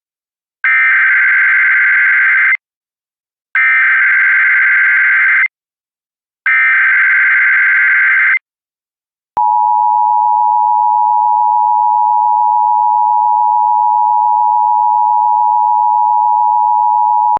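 Emergency Alert System broadcast opening: three identical bursts of screechy digital SAME header data, each about two seconds with a second of silence between them, then the steady two-tone EAS attention signal for about eight seconds. It marks the start of an emergency alert, here a child abduction (AMBER) alert.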